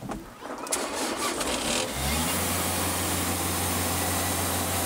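A clunk just under a second in, then an engine catches about two seconds in and runs at a steady idle.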